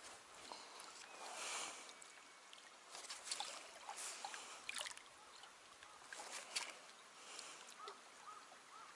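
Small waves lapping and sloshing against concrete breakwater blocks at the water's edge, with a few brief splashes. Near the end a bird calls with short repeated chirps, about two or three a second.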